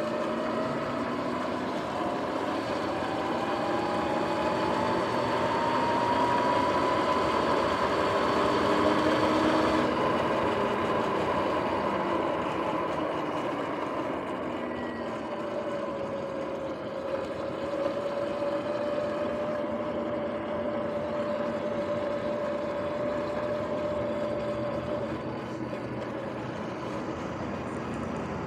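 Sur-Ron X electric dirt bike riding along: a whine that climbs in pitch as the bike speeds up over the first several seconds, then drops and holds steady, over a steady rushing noise.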